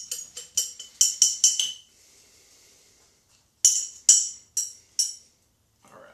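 Small glass jar clinking in quick repeated taps, about five a second, as pipe tobacco is knocked out of it into a bowl. The tapping stops for about a second and a half with a soft rustle, then comes four more clinks.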